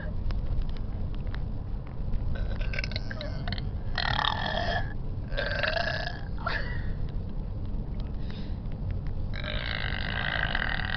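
A girl burping loudly several times in a row, about five burps with the longest one near the end, over the steady low rumble of the car cabin.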